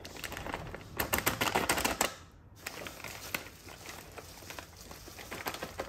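Plastic bag of shredded cheese crinkling as it is opened and squeezed, loudest for about a second near the start, then quieter rustling as the cheese pieces are tipped out onto a plate.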